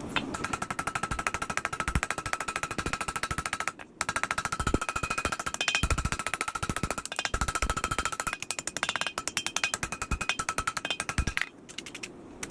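Rapid, evenly spaced hammer blows on steel while forging the bevels of a knife blade, each strike ringing, with a short break about four seconds in and stopping near the end.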